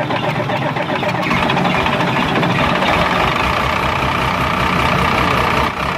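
Isuzu six-cylinder diesel engine running steadily just after starting, with an even low pulsing. Its injector line nuts are loosened to purge air from the freshly bled fuel system.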